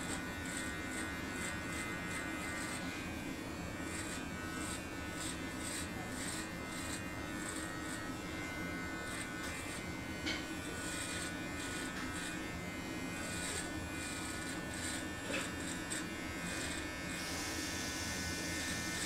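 Manscaped Lawn Mower 4.0 electric body trimmer running steadily as it is moved over chest hair, a constant buzz with short scratchy rasps coming and going.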